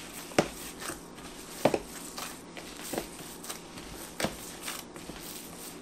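Raw meatloaf mixture of ground beef and breadcrumbs being kneaded by hand in disposable gloves in a plastic bowl: irregular wet squishes with a few sharper clicks, the loudest about a second and a half in.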